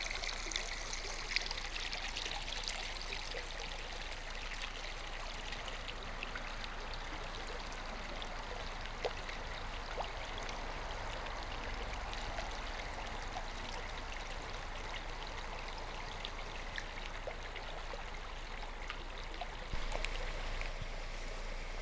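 Shallow rocky creek running over stones, a steady rush of water.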